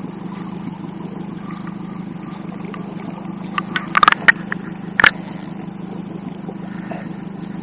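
Small boat's outboard motor idling with a steady low hum. About four to five seconds in come a few sharp clicks and knocks and a brief high-pitched buzz.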